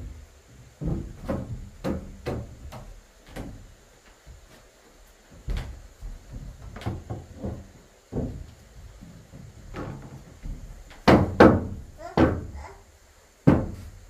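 Irregular wooden knocks and thuds from timber being handled and fitted in a wooden wall and door build, with the loudest few about eleven seconds in.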